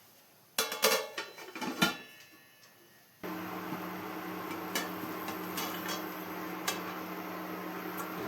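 Kitchenware clattering in a quick run of knocks, then a steady hum and hiss that starts suddenly about three seconds in and carries on, with an occasional click.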